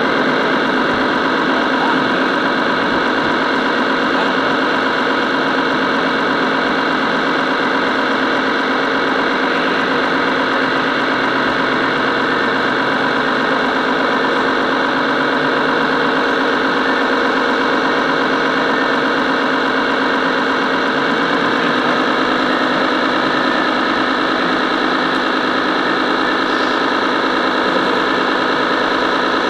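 Radio-controlled model truck running, heard from on board: a steady mechanical drone with a slight rise in pitch about 21 seconds in.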